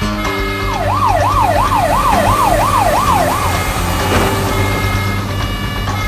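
A siren wailing rapidly up and down, about seven sweeps in under three seconds, starting just under a second in and stopping about halfway through, over background music.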